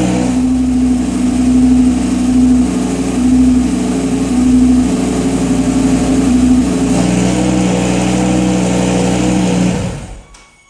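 Lamborghini Gallardo Superleggera V10 with the stock muffler, catalytic converters removed and remote exhaust valves, running stationary. It takes a series of light revs about once a second, settles to a steady idle, then shuts off about ten seconds in.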